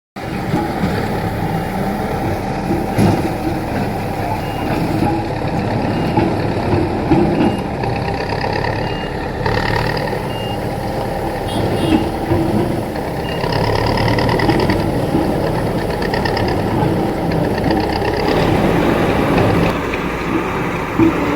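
Diesel engine of heavy road-construction machinery running steadily, with a reversing alarm beeping about once a second for much of the time.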